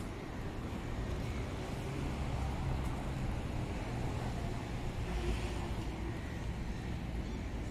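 Urban street ambience: a steady low rumble of traffic, swelling slightly about five seconds in.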